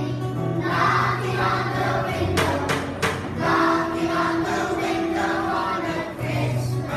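Children's choir singing a song together with a man's voice, accompanied by a strummed acoustic guitar.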